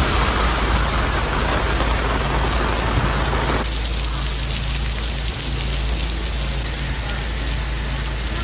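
Heavy rain pouring down, a steady hiss that thins out about three and a half seconds in.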